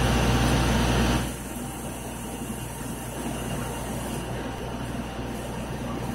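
Steady hum of aquarium equipment, pumps and filters running, with a hiss of moving air and water over it. It is louder for about the first second, then settles to a lower, even level.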